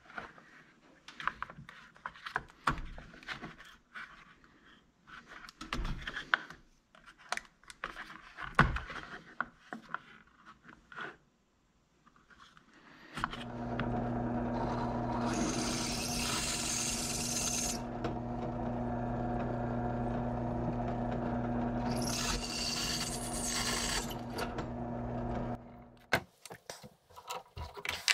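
Plastic drill-bit case and bits clicking and rattling as they are handled. About halfway, a benchtop drill press motor starts and hums steadily for about 13 seconds. It carries two spells of high cutting noise as a cobalt bit drills through the steel chainsaw bar, then shuts off, followed by metallic clicks at the chuck.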